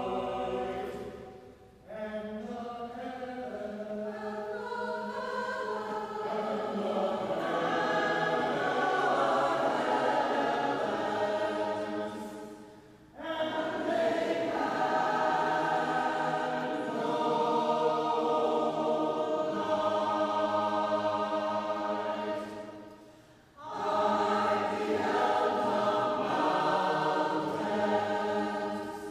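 Mixed choir singing shape-note music unaccompanied, in full sustained chords. It sings in long phrases, breaking off briefly about 2, 13 and 23 seconds in.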